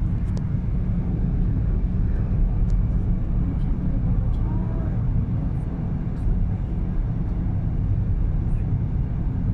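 Steady road and engine noise inside a moving car's cabin: a low, even drone of tyres and engine at cruising speed.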